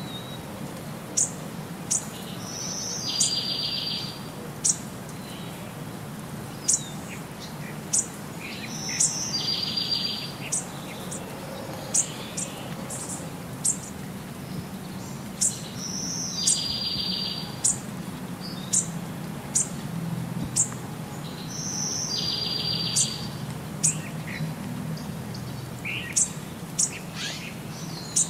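Bird calls: short high chirps about once a second, and a short rapid trill that comes back about every six or seven seconds in an even repeat, over a low steady hum.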